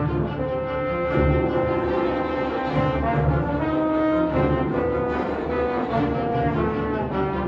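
Youth symphony orchestra playing, strings and brass together, in a slow passage of held notes that change every second or two over low strings.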